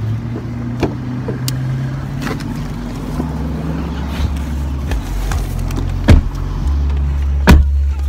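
A car's steady low engine hum and rumble, with knocks and thumps from the phone being handled; the two loudest thumps come in the second half.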